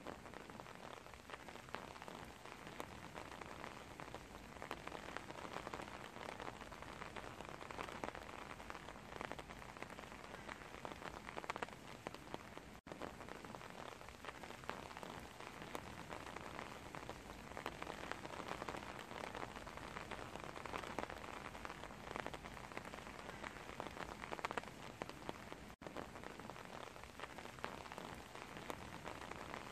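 Steady rain falling on a wet wooden deck, many drops pattering and splashing into shallow puddles. The sound cuts out for an instant twice, about 13 and 26 seconds in.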